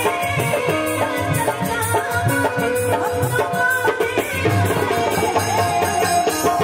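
Live Bhojpuri stage-band music: a keyboard melody of held and repeating notes over a steady folk drum beat.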